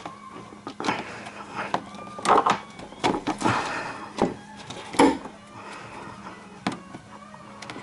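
Hand tool prying and knocking at plastic fasteners under a car's cowl: irregular clicks, knocks and short scrapes, with a sharp knock about five seconds in.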